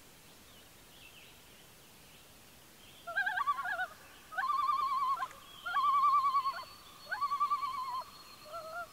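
Common loon giving its tremolo call: several quavering, rapidly wavering cries about a second each, starting about three seconds in.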